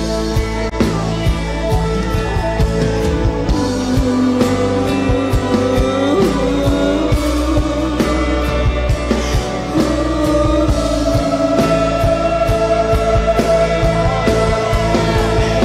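Live worship band music: an electric guitar playing over a drum kit, with voices singing.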